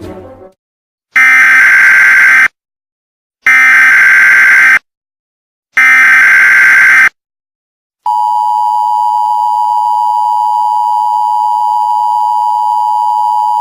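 Emergency Alert System sequence: three harsh, buzzing SAME header data bursts about a second apart, then the steady EAS two-tone attention signal held for about five and a half seconds. This sequence marks the start of an emergency alert broadcast.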